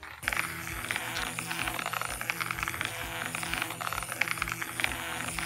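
A battery-powered Zuru Hamsters in a House toy hamster running around its plastic track: motor whirring and wheels rattling against the plastic in a dense stream of rapid clicks that starts abruptly.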